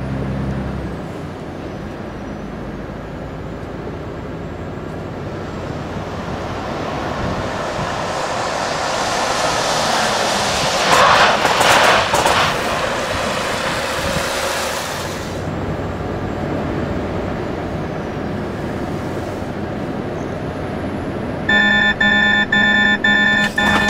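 A Volvo FH truck and a car driving past on a wet road: a hiss of tyres on the wet surface and running engines that swells to a peak about halfway through and then eases off. Near the end a held chord of steady tones starts abruptly.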